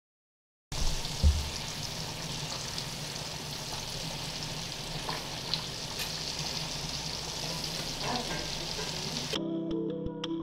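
Butter foaming and sizzling steadily as it melts in a hot cast iron skillet, with a low thump about a second in. Music starts near the end.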